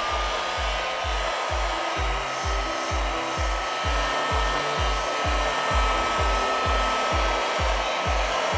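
Handheld hot air gun blowing steadily, its fan giving a thin steady whine over the rush of air, as it heats a phone's back glass to soften the adhesive. Under it, background music with a steady low beat about twice a second.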